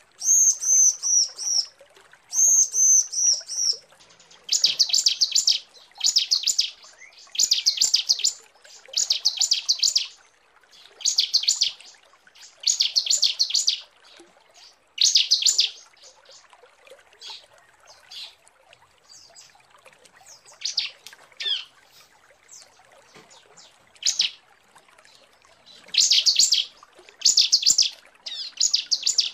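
Female ciblek (bar-winged prinia) calling to draw in a male. It opens with quick runs of high arched whistled notes, then gives repeated buzzy trills about a second long with short gaps between them. In the middle the calls drop to fainter scattered chirps, and the loud trills return near the end.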